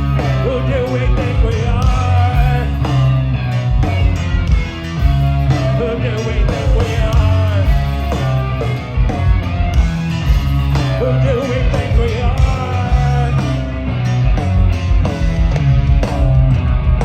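Live rock band playing loudly: electric guitars, bass and drums pounding on, with a bending melodic line over the top.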